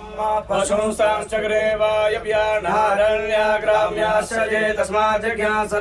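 Male voices chanting a Hindu devotional mantra in unison, on held, steady notes with brief breaks between phrases.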